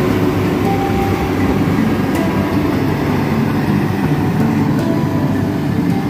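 Rice combine harvester running steadily: a loud, even machine drone that does not let up.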